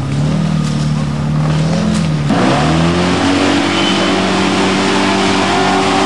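Range Rover Classic's engine working hard off-road. Its revs rise and fall for the first couple of seconds, then climb sharply and hold high and steady, under a broad rushing noise.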